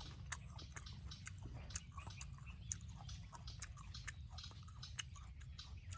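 People chewing and biting into crisp fresh rose apple: scattered small crunches and wet clicks, over a steady high-pitched whine.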